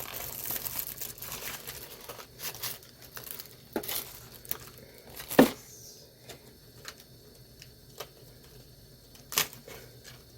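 Doll packaging being torn open and crinkled by hand, in irregular rustles and crackles, with one louder sharp click about halfway through.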